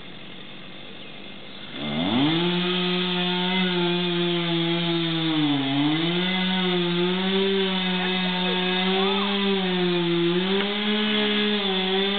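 Chainsaw idling, then revved up sharply about two seconds in and held at high speed as it cuts into the tree trunk, its pitch sagging and recovering under load.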